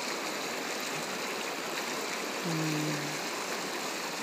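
Shallow, clear creek rushing and rippling over rocks, a steady even wash of water noise. About two and a half seconds in, a person hums briefly at a low pitch.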